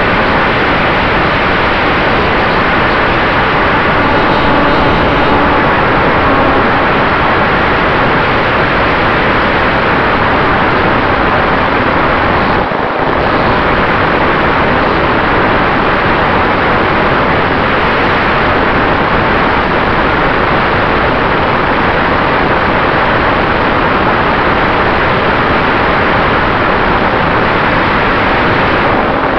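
Radio-controlled Cessna 188 scale model in flight, heard from its onboard camera: a loud, steady rush of wind and propeller noise with a faint constant whine, dipping briefly about halfway through.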